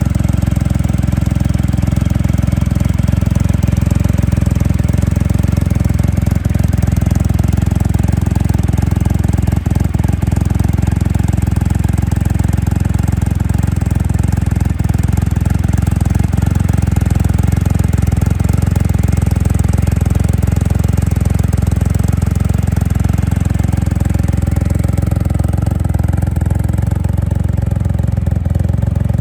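Triumph Rocket III motorcycle's large inline three-cylinder engine idling steadily, with no revving.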